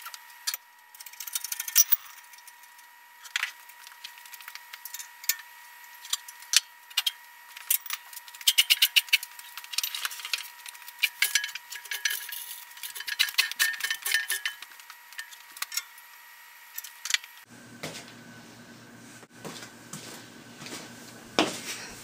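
Irregular metallic clicks and clinks, some in quick clusters, from the chain and ram of an engine hoist being worked to raise a cast-iron milling machine base.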